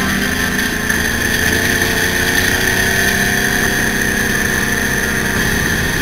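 Mini dune buggy's engine running steadily as the buggy drives along a gravel trail, heard from on board, with a steady high whine over it.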